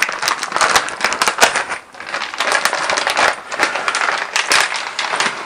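A packet of plastic drywall anchors and screws being opened and handled: the packaging rustles while the small hard pieces click and rattle against each other, with a short lull about two seconds in.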